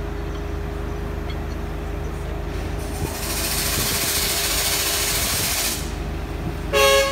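Heavy engine running steadily at the coiled tubing rig. About three seconds in, a loud hiss starts and lasts about three seconds, and near the end there is a short, loud horn blast.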